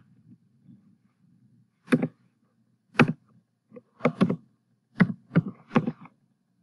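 Computer keyboard keystrokes: about eight sharp, irregular key clicks while a line of R code is typed.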